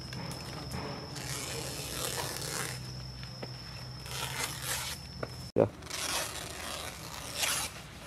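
Fresh banana leaves rustling and scraping as they are folded, torn and wiped by hand, in three bursts, with one sharp click about five and a half seconds in.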